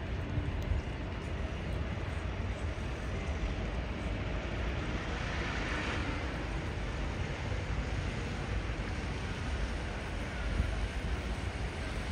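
Street traffic noise with wind buffeting the microphone in low rumbles. Something passes, swelling and fading about five to seven seconds in.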